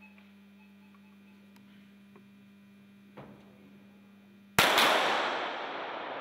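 Low steady hum, then about four and a half seconds in two sharp .22 sport-pistol shots almost together, followed by a loud noisy wash that fades slowly.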